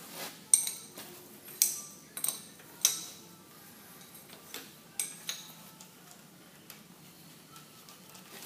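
Sharp metallic clinks of steel tools and parts on a lathe's cast-iron compound slide as it is taken off: a run of clinks in the first three seconds, then two more about five seconds in.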